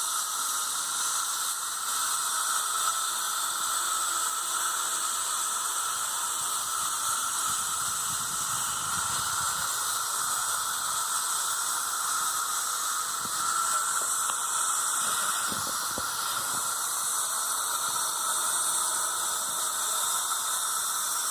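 Stone grinding and milling machinery running continuously: a steady, high-pitched grinding hiss with a constant whine under it, unchanging in level throughout.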